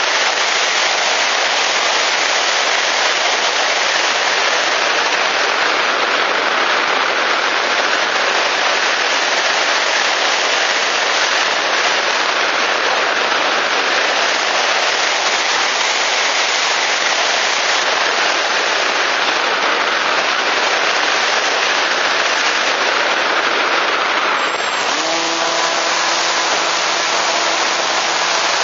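Air rushing loudly past the onboard camera of an EasyGlider RC electric glider in flight. Near the end a steady hum with several tones cuts in as the glider's electric motor starts up.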